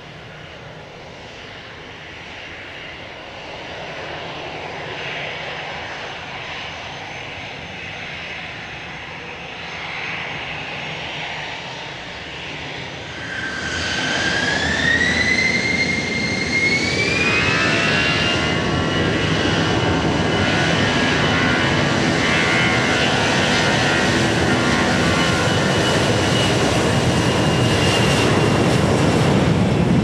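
Airliner engines growing louder. About halfway through, a high whine rises in pitch in two steps and then holds high, as the engines spool up to a loud, steady power.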